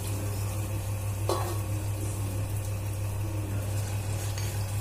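Cooking at a gas stove with stainless steel pots: a steady hiss over a low hum, with a single ringing metal clink of steel vessels about a second in.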